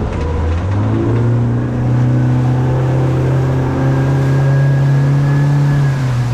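Boat's outboard motor running under way, its pitch rising as it speeds up about a second in, then holding steady.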